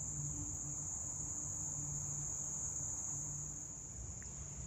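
Steady, unbroken, high-pitched drone of an insect chorus.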